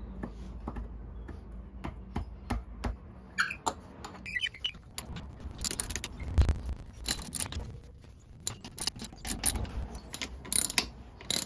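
Socket ratchet and socket driving M10 coach screws into a railway sleeper: a run of irregular sharp metal clicks and clinks, busier from about halfway through.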